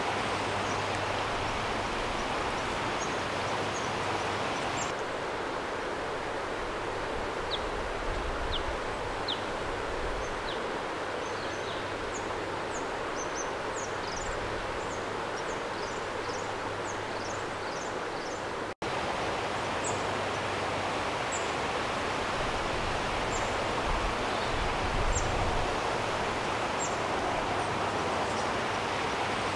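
Outdoor ambience: a steady rushing noise with many short, high bird chirps over it, busiest around the middle. The sound drops out for an instant about two-thirds of the way through.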